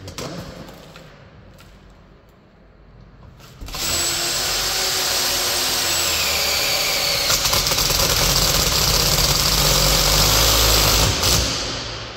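Power drill driving a screw into the sheet steel of a fire door, starting about four seconds in and running for about seven and a half seconds, its whine dropping in pitch as it takes the load. Light handling clicks come before it.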